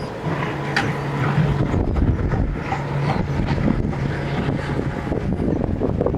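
An engine running steadily with a low hum, with wind buffeting the microphone.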